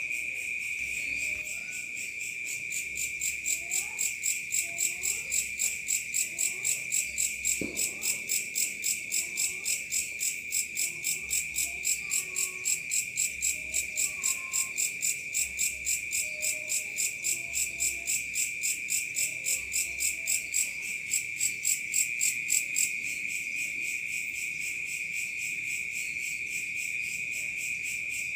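Night insects calling: a steady, unbroken high trill. From about a second and a half in, a faster pulsing chirp of about three to four beats a second joins it, then stops about five seconds before the end.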